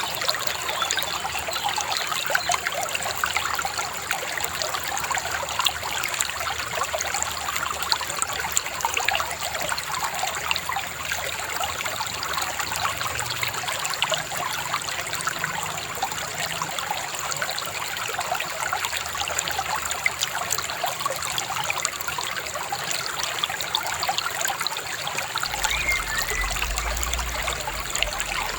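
Shallow river babbling and trickling over stones, a steady, even rush of running water.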